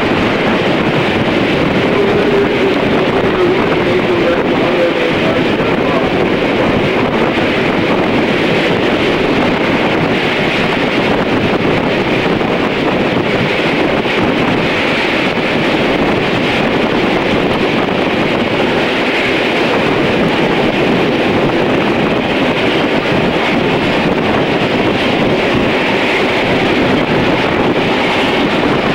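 Steady rumble of a moving passenger train's coaches running along the track, with wind buffeting the microphone held out of an open coach window.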